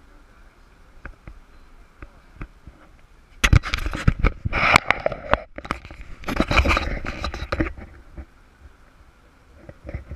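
Handling noise from a small handheld camera: rubbing, scraping and knocking against its microphone in two loud rough bursts, each about two seconds long, starting about three and a half seconds in, over faint background.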